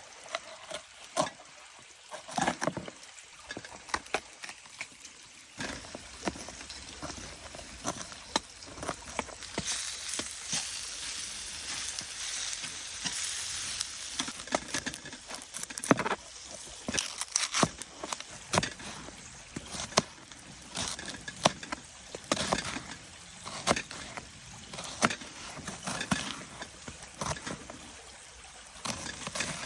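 Cooking on a stove: scattered knocks and clatter of utensils against a pan, with a sizzling hiss that comes in and swells about ten seconds in as onions fry.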